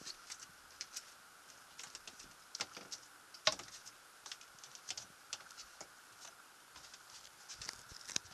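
Footsteps and small knocks of someone climbing down into a boat's cabin: irregular light clicks and taps, with a sharper knock about three and a half seconds in. A faint steady high hum sits underneath.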